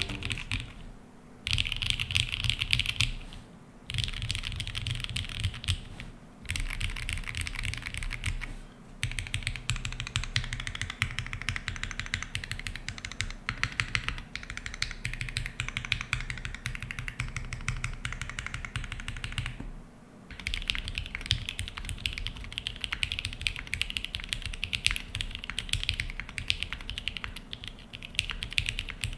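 Mechanical keyboard with broken-in, lubed and filmed Cherry MX Black linear switches in an aluminium half plate under GMK keycaps, typed on in rapid rolls across the keys separated by short pauses. After a pause about two-thirds through, it goes into steady continuous typing.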